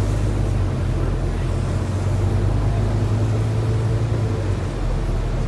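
Volvo B9TL double-decker bus's six-cylinder diesel and drivetrain running while the bus is under way, heard from inside the passenger cabin: a steady low hum over road noise, easing slightly near the end.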